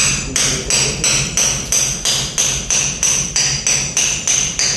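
Steady hammering on metal, about three blows a second, each blow followed by a high ring.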